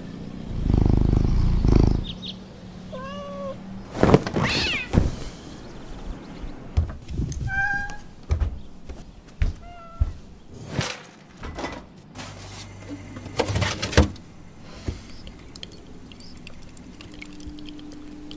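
A domestic cat meowing a few short times, among scattered thumps and knocks. A loud low rumble near the start is the loudest sound.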